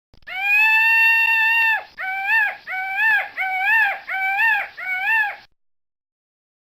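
Peacock calling: one long, level call, then five shorter calls in quick succession, each rising and falling in pitch.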